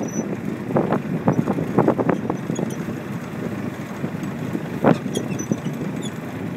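Wind buffeting the microphone while sailing, a steady rough rumble broken by a few sharp thumps, the loudest about five seconds in.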